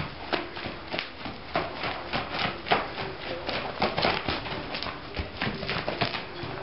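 Hoofbeats of a Quarter Horse mare loping on dirt footing: quick, uneven thuds, several a second.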